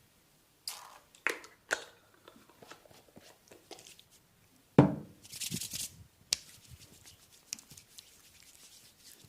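Back massage sounds: three sharp smacks in quick succession, then a louder, heavier smack about five seconds in followed by a second of brisk rubbing on skin, and a few lighter taps after.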